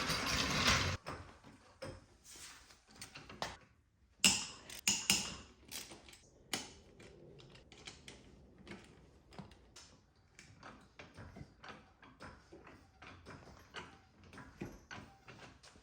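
Hands and tools working among an ATV's plastic body panels in the wheel well: a loud scraping rustle in the first second, a run of sharp knocks and clacks about four to six seconds in, then small scattered clicks.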